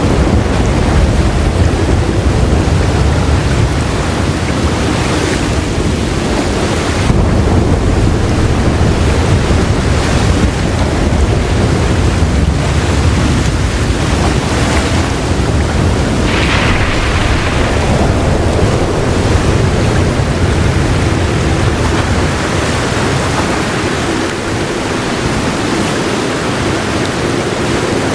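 Heavy rain hissing steadily, over a low rolling rumble of thunder that dies away in the last few seconds.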